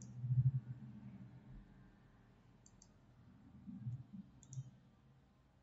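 A few faint computer mouse clicks, two of them close together about two and a half seconds in, with some soft low thuds.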